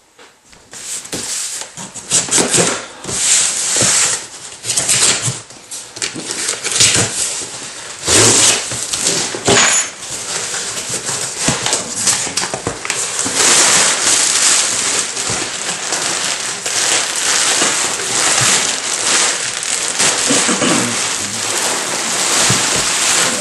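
Packing material crinkling and rustling as a packed item is unwrapped by hand: separate crackling handling noises for the first ten seconds or so, then near-continuous rustling.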